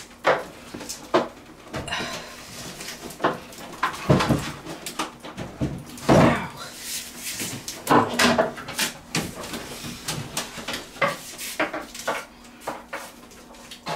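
Irregular knocks, bumps and scraping of a large cardboard-covered flat-screen TV being handled and set against a wall mount, with several sharper clicks and a few longer scrapes.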